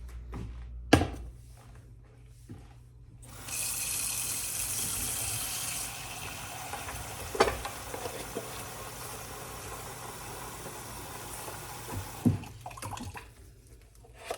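Kitchen tap running into the sink for about nine seconds: it comes on a few seconds in, harder at first, then flows steadily until it is shut off near the end. A sharp knock sounds about a second in, and there are small clicks while the water runs.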